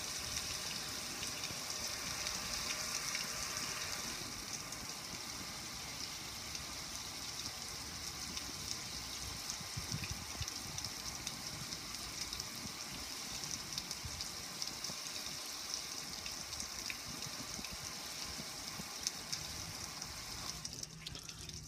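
Steady hiss and patter of water pouring off a gas grill's lid and front panel and splashing onto the patio below, with small scattered drip ticks. The hiss drops away near the end.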